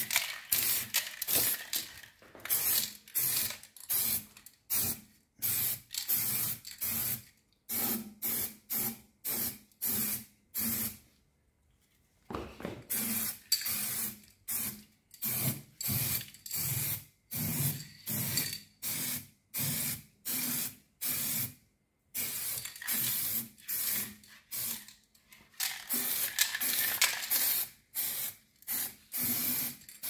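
Aerosol can of heat-resistant matte black stove paint spraying a fireplace's metal door frame in many short hissing spurts, about one or two a second, with brief pauses between passes.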